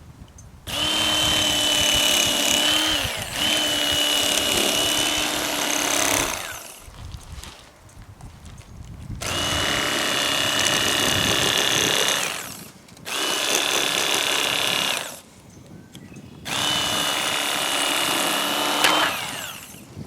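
A small electric motor, like a power tool's, runs in five bursts of two to three seconds each at a steady pitch. Each burst ends with a short falling spin-down as the motor is switched off.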